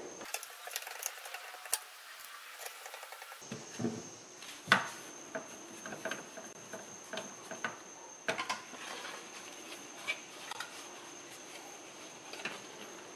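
Small screws being driven by hand with a screwdriver into a car stereo's side mounting bracket, with plastic and metal parts being handled: faint, scattered clicks, ticks and scrapes.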